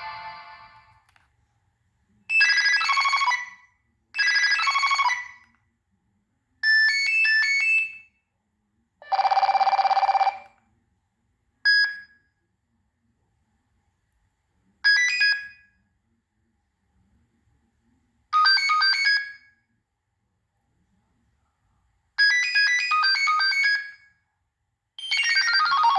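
Nokia 6015i phone playing a string of short ringtone snatches through its speaker. There are about nine brief bursts of bright electronic melody, each cut off after a second or so, with silence between them.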